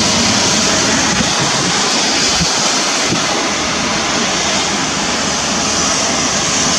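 Heavy downpour of rain: a loud, steady hiss of pouring rain.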